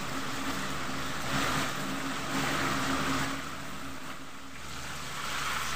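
Whole chickens deep-frying in a wok of hot oil: a steady sizzle and bubbling, easing slightly a little past the middle, over a constant low hum.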